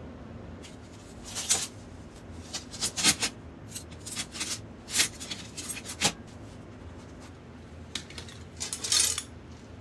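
Stainless steel rods clinking and rattling against each other as they are handled and slid into a cloth drawstring bag: a dozen or so sharp metal clinks spread irregularly, with a longer rattle near the end.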